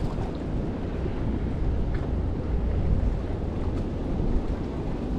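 Steady wind rumble on the microphone, with the sea washing in the background.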